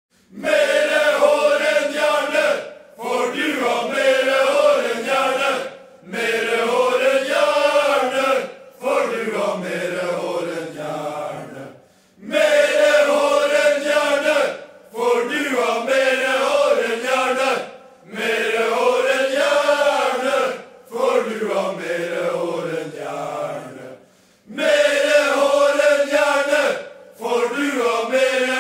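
Male voices chanting a football supporters' song in unison, without instruments. The same four-phrase tune repeats about every twelve seconds, with short breaks between phrases, and the fourth phrase slides down in pitch.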